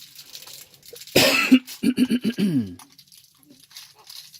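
A person coughs loudly, a sharp first cough followed by several quicker ones that trail off lower, about a second in. Faint crinkling of plastic wrapping being handled comes before and after.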